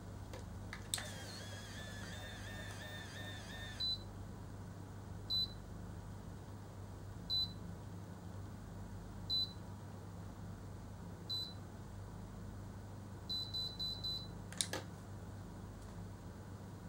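An automatic rotating hair curler at work: a warbling whir for about three seconds as it draws a lock of hair into its chamber, then short high beeps about every two seconds while the curl sets, and a quick run of four beeps, the signal that the curl is done. A click follows shortly after.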